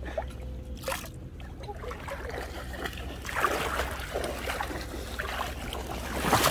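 Shallow seawater splashing and sloshing, with irregular small splashes that grow busier about three seconds in.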